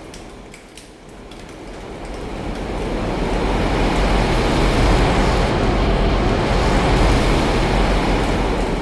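Long roll of distant thunder, a low rumble that swells for several seconds and slowly fades, over steady drizzle.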